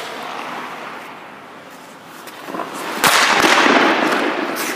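Ice hockey shot: a sharp crack of a stick striking the puck on the ice about three seconds in, followed by noise that echoes and fades in the rink.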